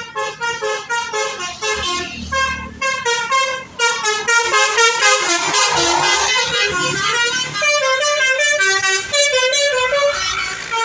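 Basuri telolet bus horn playing a fast melody of short, stepped notes, several horn tones sounding together.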